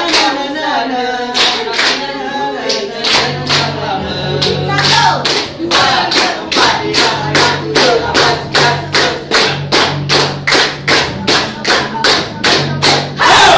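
A group of people clapping their hands in a steady rhythm along with singing and music. A deeper accompaniment comes in about three seconds in, and the loudest clap falls near the end.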